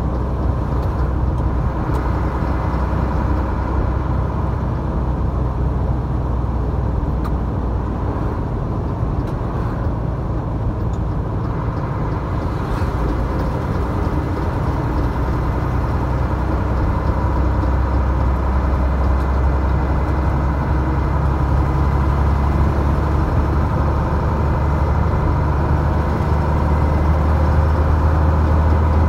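Steady engine and road noise of a moving vehicle, mostly a low rumble, growing a little louder over the last several seconds.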